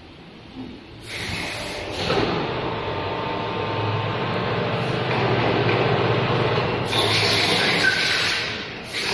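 Injection moulding machine cycling with an eight-cavity PET preform mould: the mould clamp closes, then the machine runs with a steady mechanical hum and noise. There are louder bursts of hissing about seven seconds in and again near the end.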